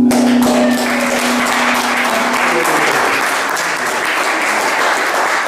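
Audience applauding at the end of a song, with one low note of the final guitar chord dying away over the first two seconds or so.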